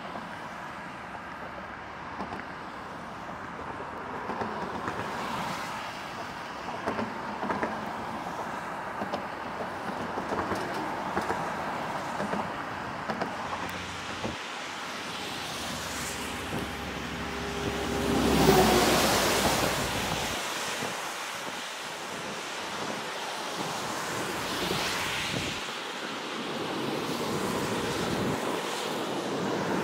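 Highway traffic going by, tyres hissing on wet pavement. About 18 seconds in, a vehicle passes close with a falling pitch, the loudest moment.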